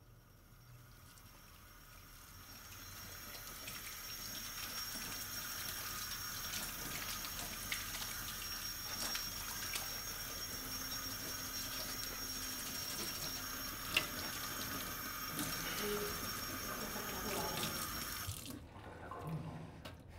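Kitchen tap running into a steel sink while dishes are washed by hand, with a few sharp clinks, the loudest about two-thirds of the way through. The water shuts off suddenly near the end.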